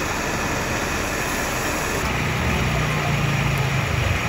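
Steady mechanical whirring from a skewer-grill stall's equipment, with a low hum coming in about two seconds in and faint crowd chatter underneath.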